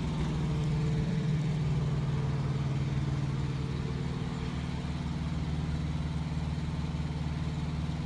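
An engine idling steadily: an even, unchanging low hum.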